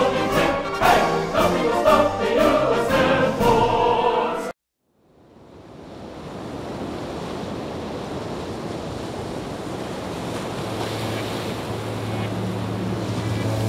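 Choral music that cuts off abruptly about four and a half seconds in. After a brief silence, the steady rushing noise of an airliner cabin in flight fades in and holds, with a low hum and music coming back in near the end.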